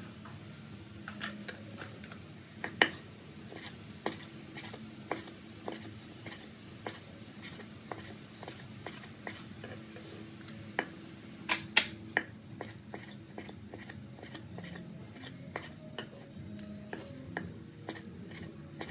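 Steel cleaver chopping chicken on a wooden cutting board: irregular knocks of the blade on the board, about one a second, coming faster and lighter in the second half. The loudest strikes fall near the start and in a quick pair about halfway.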